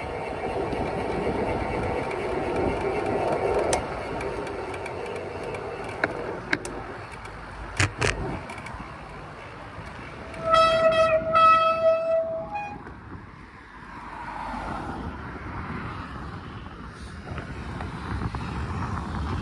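Two short horn toots on one steady note, about ten seconds in, over a background of wind-like rumble with a few sharp clicks before them.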